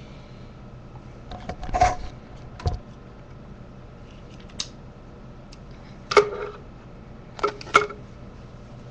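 Handling noise from the webcam and computer as the recording is being stopped: a few scattered knocks and clicks, the loudest a double knock near the end, over a steady low hum.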